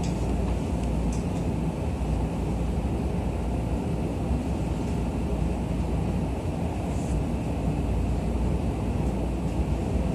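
Interior running noise of a JR East E231 series electric commuter train under way: a steady low rumble of the wheels on the rails with a faint hiss above it.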